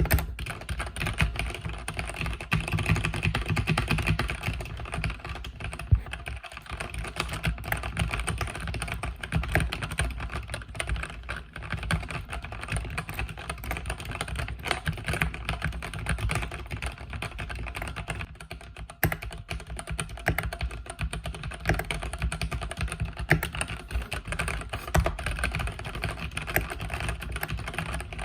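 Continuous fast typing on a mechanical keyboard with linear red switches, dense key clicks and clacks with only brief pauses.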